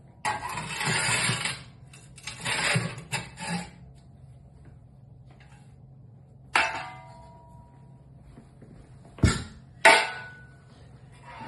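Metal tools scraping and clattering in a fireplace firebox as ash is cleared out: two scraping passes, a ringing metal clink, then two sharp knocks near the end.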